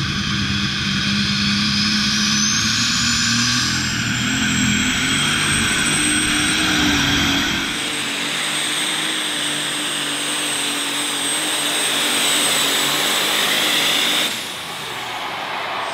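Modified Ford pulling tractor's engine running hard under load, with a high whine that rises over the first few seconds and then holds steady. The engine sound changes abruptly about eight seconds in and drops a little near the end.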